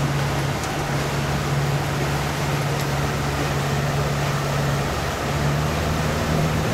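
Tour boat's engine running steadily under way: a constant low drone over a steady rushing noise, the drone shifting slightly in pitch about five seconds in.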